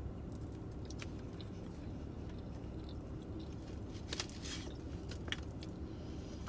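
A person chewing a bite of papa rellena (fried stuffed potato ball) up close, with small mouth clicks and a brief crunchy bite about four seconds in, over a steady low hum.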